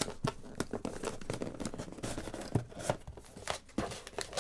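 A cardboard box being handled and its lid opened, with irregular scrapes and clicks, then the crinkle of a foil bag inside being touched near the end.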